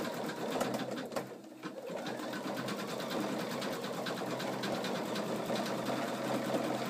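Pfaff Creative 4.0 embroidery machine stitching, its needle running in a fast, even rhythm, with a brief lull about a second and a half in.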